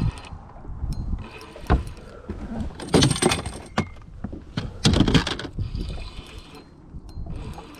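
A few short splashing and knocking sounds around a small fishing boat, about a second and a half apart, while a hooked fish is brought to the boat.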